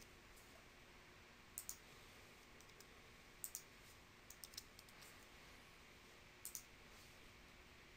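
Faint clicks of a computer keyboard and mouse over quiet room hiss: a quick double click about a second and a half in, a scatter of clicks around the middle, and another double click near the end.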